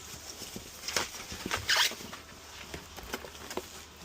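Plastic packing wrap rustling and crinkling as it is handled around a vacuum cleaner, with scattered light clicks and a short, louder crackle a little under two seconds in.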